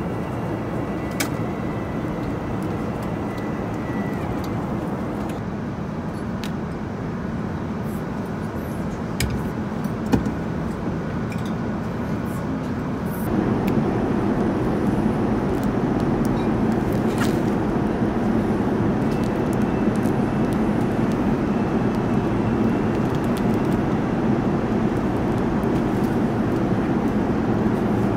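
Steady rushing hum of an Airbus A350-900 passenger cabin, stepping up louder about halfway through, with a few light clicks of handling.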